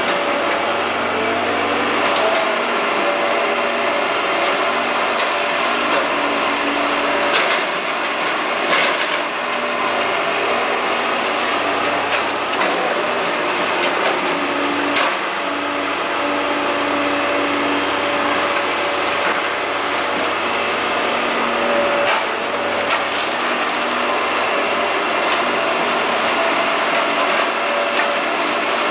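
Caterpillar E240B hydraulic excavator's diesel engine running under load while digging, its pitch shifting as the hydraulics work, with a few sharp knocks scattered through.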